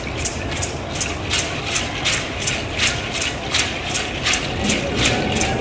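Dance rattles shaken in a steady beat, about three to four sharp strokes a second.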